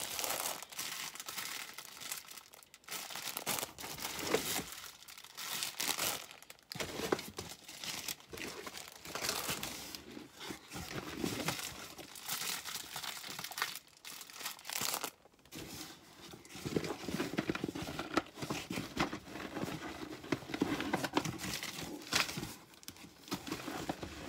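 Plastic packaging crinkling and rustling in irregular bursts as parcels in black plastic bags and clear sleeves are handled and unwrapped, with some tearing.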